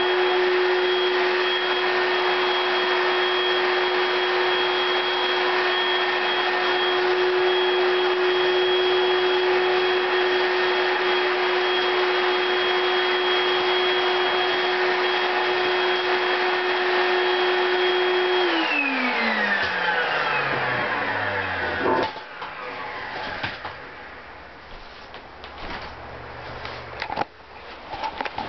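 Hoover Celebrity straight-suction canister vacuum running with a steady whine, then switched off about two-thirds of the way in, its motor pitch falling as it winds down. A sharp knock follows as it stops, then quieter knocks and clatter.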